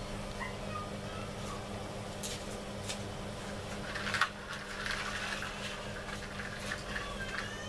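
Plastic toy dump truck handled on a tiled floor: scattered light clicks and one sharp knock about four seconds in, over a steady low hum.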